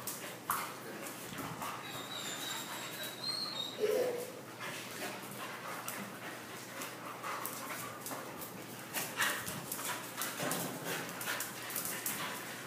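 Two dogs play-wrestling on a concrete floor: scuffling and a stream of short sharp clicks and knocks, with brief whining and dog vocal noises. A thin high whine runs about two to three and a half seconds in, and a short louder vocal sound comes about four seconds in.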